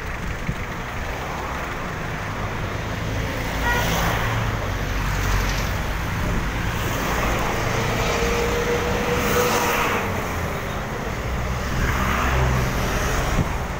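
Road traffic, with motor vehicles running and passing by. A low engine rumble runs through most of it, louder swells come as vehicles go past, and a faint held tone sounds a little past the middle.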